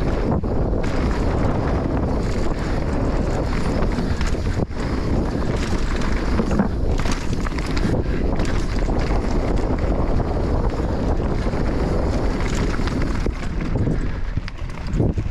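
Heavy wind noise on the microphone over a running enduro motorcycle engine, steady throughout with a couple of brief dips.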